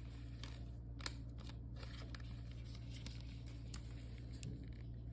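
Faint rustling and small clicks of a trading card being handled and slid into a plastic sleeve, with one sharper click about a second in, over a steady low hum.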